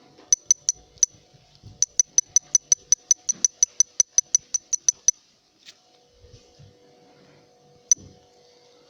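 Sharp, high clicks from a Sony Xperia E5 smartphone: a few scattered ones, then a fast, even run of about six a second lasting some three seconds, and one more near the end.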